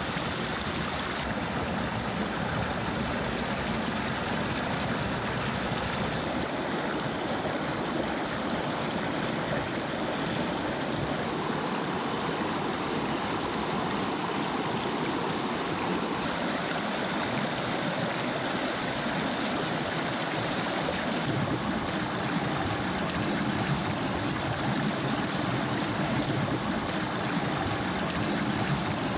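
Rocky stream rushing over stones in small rapids: a steady noise of running water that shifts slightly in tone a few times.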